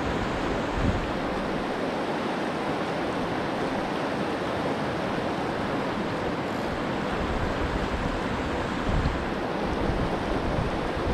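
Steady rush of flowing river water, with a few low buffets of wind on the microphone about a second in and again near the end.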